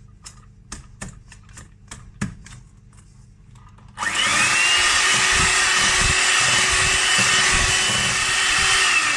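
Electric hand mixer beating egg yolks and sugar in a bowl. It switches on about four seconds in with a rising whine, then runs steadily at speed with low knocks from the beaters. Before that there are a few light clicks and taps.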